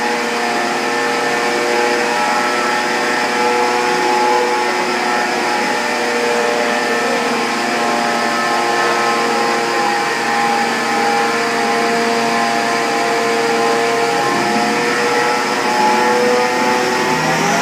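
Ford Focus ST's turbocharged five-cylinder engine running under load on a rolling road, held at steady revs with the dyno rollers and tyres adding a broad noise. Right at the end the engine note begins to climb.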